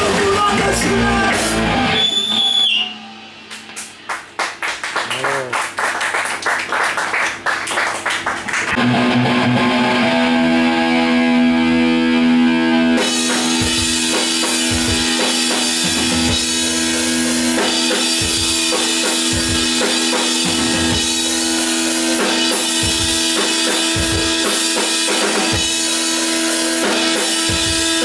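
Live rock band of electric guitar and drum kit playing, with vocals at the start. The band drops out abruptly about three seconds in to a quieter stretch of fast repeated strokes, then held notes, and the full band with drums comes back in about thirteen seconds in.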